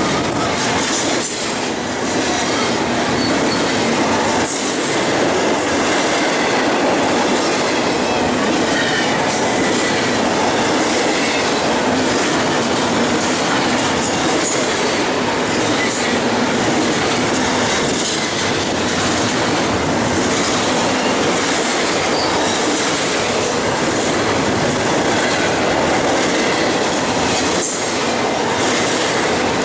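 Double-stack intermodal freight train's well cars rolling past close by at speed: a loud, steady rush of steel wheels on rail, with a wheel click over the track now and then.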